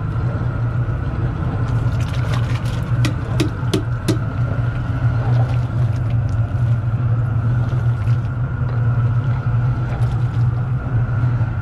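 Propane burner under a large stew kettle running with a steady low roar. A few sharp clicks come about three to four seconds in.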